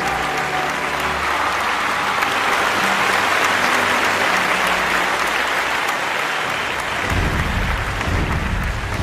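Audience applauding steadily, with the last music notes fading out in the first second. About seven seconds in, a low rumble comes in under the applause.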